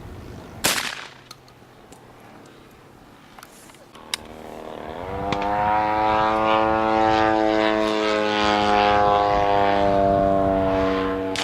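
A single shotgun shot less than a second in. From about five seconds in, an engine drone rises in pitch and then holds steady and loud.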